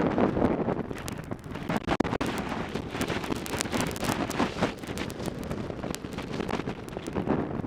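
Wind buffeting the microphone in gusts, with many short clicks and knocks scattered through it.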